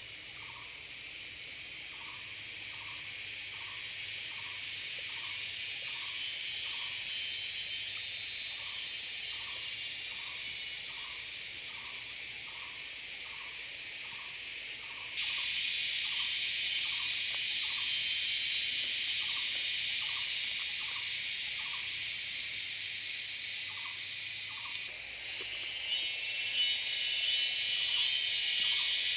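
A dense, steady chorus of insects, with a short call repeating about once a second throughout. The chorus grows louder about halfway through and again near the end.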